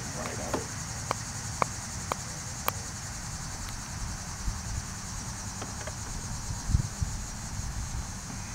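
A steady, high-pitched insect chorus with a fast pulse, over a low rumble. A few sharp clicks come in the first three seconds, and there is a low thump about two-thirds of the way through.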